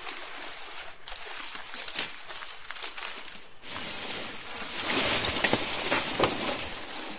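Leaves and dry undergrowth rustling and crackling as a person pushes through dense vegetation carrying a bundle of large leaves, with small twig snaps throughout, growing louder about halfway through.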